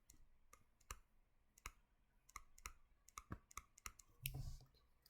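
Faint, irregular clicks, about ten of them, from writing or drawing on a screen during a lecture, with a short soft hiss about four seconds in.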